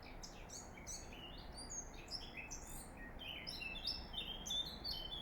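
A songbird singing a fast, unbroken run of varied high chirps, slurred notes and trills, over a steady low background rumble.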